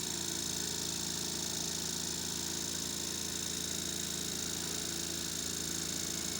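Steady mechanical hum with a high whine over it, unchanging throughout.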